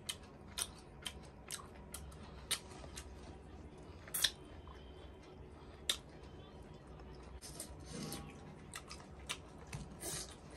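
Close-up mouth sounds of chewing chicken intestines: irregular wet smacks and clicks, a dozen or so, spaced unevenly.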